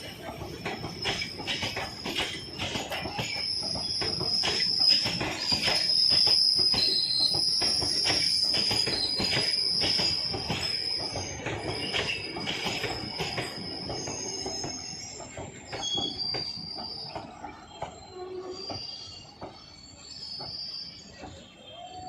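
Express passenger train rolling into a station, its wheels clacking over rail joints under a high, steady brake squeal. The squeal dies out about two-thirds of the way through and the clacks grow sparser and quieter as the train slows.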